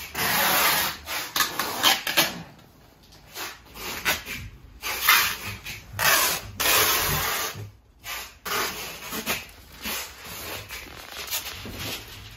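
Packing paper rustling and crumpling as household items are wrapped for moving, in irregular bursts, with a few small knocks of objects being handled.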